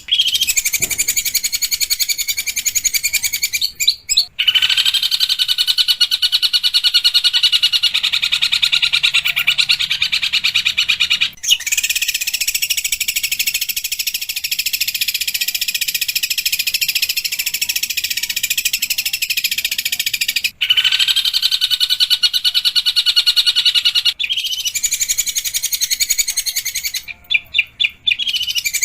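Long-tailed shrike singing long runs of rapid, harsh, scratchy chatter, in several long phrases broken by brief pauses.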